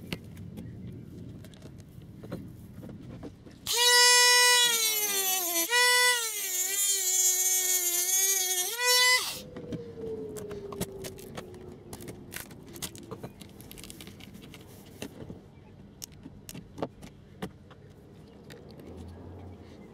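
Mini rotary tool with a cut-off disc cutting through a model railway rail. It is switched on about four seconds in, and its high whine dips and wavers in pitch as the disc bites into the rail. After about five seconds it is switched off and winds down, falling in pitch, and faint clicks of hand work on the track follow.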